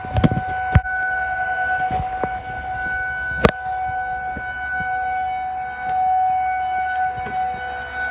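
Outdoor warning sirens sounding for a severe thunderstorm warning, holding one steady pitch. A few sharp knocks come near the start and about three and a half seconds in.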